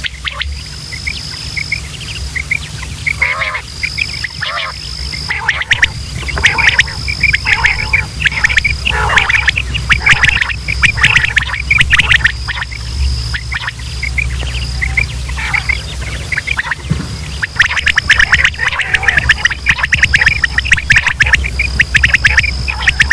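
Quail calling over and over in quick, overlapping bursts, with a thin high tone repeating behind them and a steady low hum underneath.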